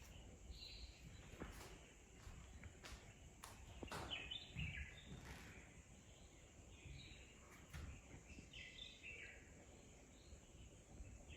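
Faint, near-silent outdoor ambience with short bird chirps in small clusters every few seconds, loudest around four to five seconds in, and a few faint clicks.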